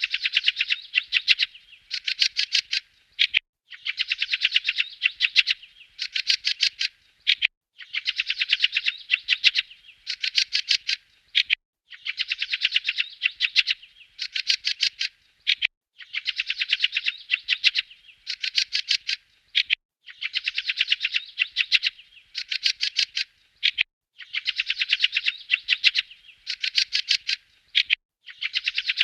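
A bird chirping in quick bursts: rapid runs of short high notes, each run lasting a second or so, repeated over and over with brief pauses between.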